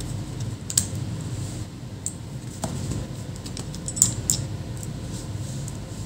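Light clicks and taps of metal tweezers and fingers on a laptop's plastic and metal internal parts during disassembly, with a few sharper clicks, the loudest about four seconds in. A steady low hum runs underneath.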